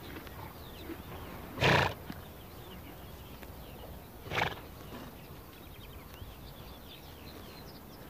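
A Przewalski's horse snorting twice, short breathy blasts about three seconds apart, the first the louder, over faint birdsong.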